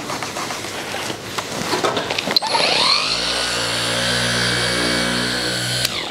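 Rubbing and handling of a foam polishing pad, then about two and a half seconds in a cordless mini polisher clicks on, spins up with a rising whine and runs steadily on the paint before stopping shortly before the end.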